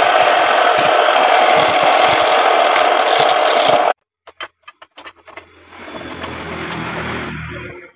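A homemade woodturning tool ground from a scrap sickle blade cutting into a wood blank spinning on a lathe, a loud steady rough scraping that stops abruptly about four seconds in. A few sharp clanks follow as the metal tool rest is adjusted, then a low hum.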